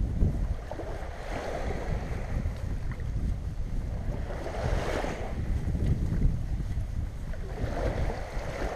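Small waves washing up on a sandy shore, three washes that swell and fade, with wind rumbling on the microphone throughout.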